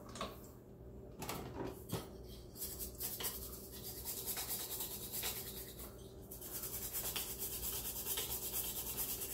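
A toothbrush scrubbing a necklace with toothpaste. A few light knocks and handling sounds come first, then about six seconds in a rapid, even back-and-forth brushing starts.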